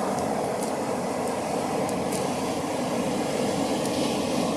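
Steady, unbroken noise of ocean surf breaking on the beach.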